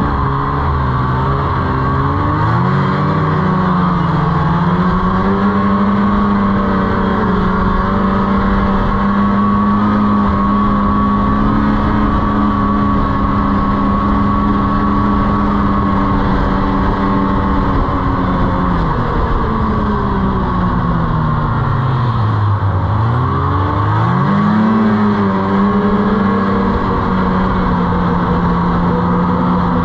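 Snowmobile engine under way. Its pitch climbs in the first few seconds and holds steady, then drops off as the throttle eases for a few seconds in the second half, and climbs back to the same steady pitch.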